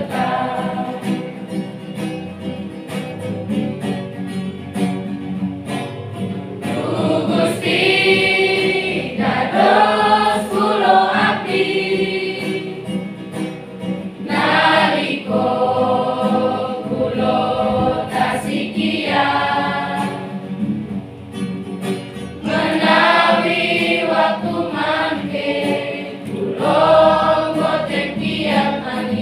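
Children's and youth church choir singing a hymn together, many young voices in phrases that swell and ease, with short breaks between lines.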